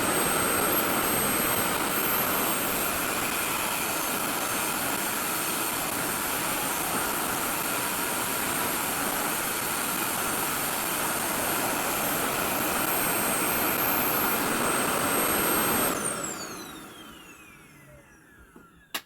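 RevAir reverse-air hair dryer running, a steady rush of suction airflow with a high whine. About three-quarters of the way through it cuts off unexpectedly and the fan winds down with a falling whine. A sharp click comes near the end.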